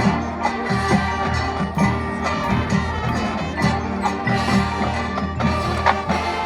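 Marching band playing its field show: wind instruments with drums and ringing mallet percussion, marked by regular sharp strikes.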